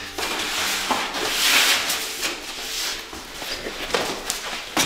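Cardboard packaging of flat-packed kitchen cabinet panels scraping and rustling as it is handled, in uneven swells, with a couple of sharp knocks near the end.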